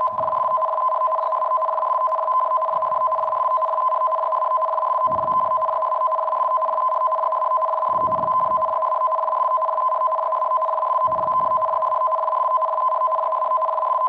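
Emergency Alert System attention signal: two steady tones sounding together without a break, as an earthquake alert. Faint low rumbles come and go beneath it every two to three seconds.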